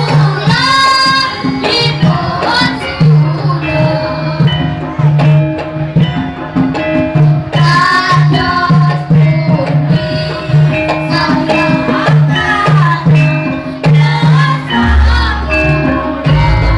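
Javanese gamelan ensemble playing, with metal keyed instruments repeating steady notes over a regular beat and a voice singing with it. A deep low tone comes in near the end.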